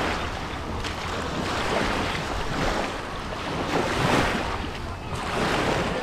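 Small waves washing onto a beach, the noise swelling and fading every second or two, with wind rumbling on the microphone.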